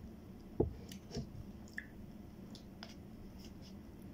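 Eating sounds as ice cream is taken from a paper cup with a metal spoon. There is a soft knock about half a second in and a weaker one about a second in, then scattered faint clicks and wet mouth sounds.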